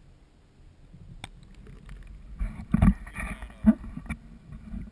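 Water sloshing and splashing right at the microphone with the camera at the waterline, with a sharp click about a second in and several knocks and heavier splashes in the second half.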